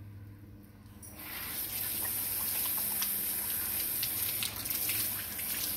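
Kitchen sink faucet's pull-down sprayer turned on about a second in, water then spraying steadily over a small dog's wet coat and splashing into the sink as the dog is rinsed.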